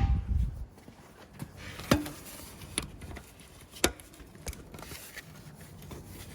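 Hand tools being handled: a dull knock at the start, then a handful of separate sharp metallic clicks and taps as a socket is pulled off and a ratchet is fitted to an engine turning tool.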